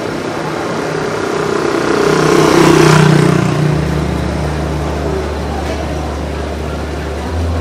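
A motor vehicle passes by, its engine sound swelling to a peak about three seconds in and then fading, followed by a steady low hum.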